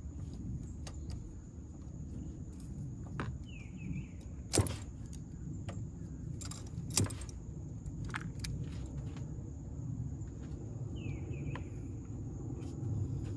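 Scattered metallic clicks and clinks of hand tools working at a truck's battery cables and terminals, with two sharper clicks about four and a half and seven seconds in, over a steady low hum.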